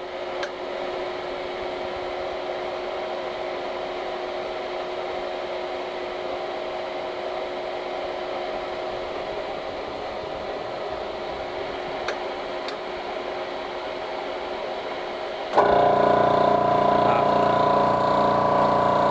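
Air Venturi 4500 PSI air compressor: its cooling fan running with a steady hum. About three-quarters of the way through, the compressor pump starts and the sound jumps abruptly louder into a dense, steady machine run, like a typical construction-site compressor but not quite as loud.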